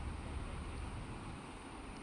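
Wind rumbling unevenly on the microphone over a steady background hiss, with a faint steady high-pitched tone; no distinct splash or knock stands out.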